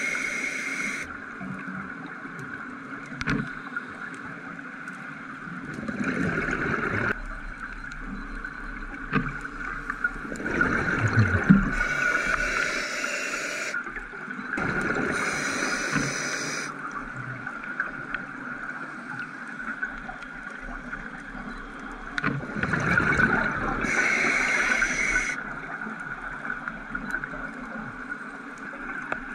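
A scuba diver breathing through a regulator underwater: every few seconds a spell of gurgling exhaled bubbles and rushing air, with a steady low hiss between breaths.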